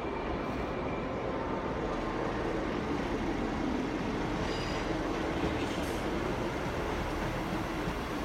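ScotRail Class 158 diesel multiple unit pulling away under power: a steady diesel engine drone with train rumble, swelling slightly partway through.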